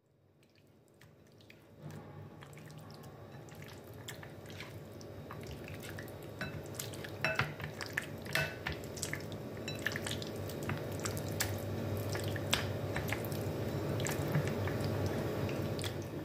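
Wet squelching of raw chicken wings being kneaded by hand in a thick yogurt and spice marinade, with scattered clicks as the pieces knock against a ceramic plate.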